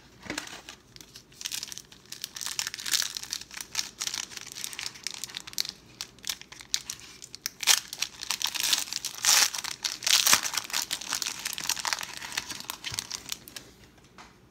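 Foil wrapper of a 1992 Pro Set football card pack being torn open and crinkled by hand: a dense run of crackling, loudest in the second half, that fades out near the end.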